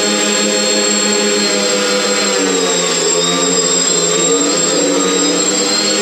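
Several Blade Inductrix FPV tiny-whoop quadcopters flying, their small motors and propellers making a steady whine. The pitch wavers up and down as the throttle changes, with several tones overlapping.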